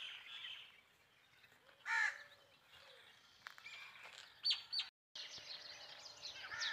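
Faint birds chirping, with a single crow's caw about two seconds in.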